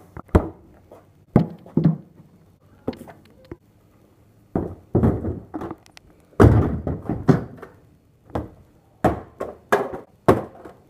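A series of knocks and thumps, irregularly spaced, with two longer stretches of scraping and handling noise about five and seven seconds in.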